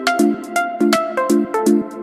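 Electronic background music with a steady beat: short repeated synth chords over crisp high ticks.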